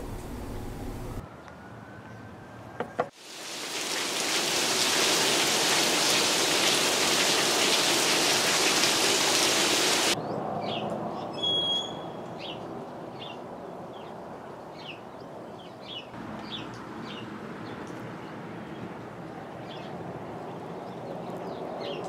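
Steady rain, a loud even hiss for about seven seconds, then quieter with short high chirps.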